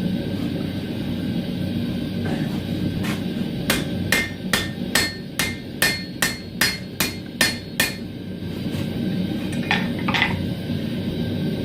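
Hand hammer forging a 10mm square steel bar on an anvil. A single blow, then a steady run of about a dozen blows, roughly three a second, each with a short metallic ring, over a steady low rushing noise.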